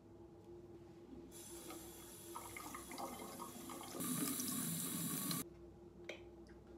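Bathroom faucet running into a sink as a facial cleansing brush is rinsed under the stream. The water starts about a second in, gets louder about four seconds in and cuts off abruptly a second and a half later.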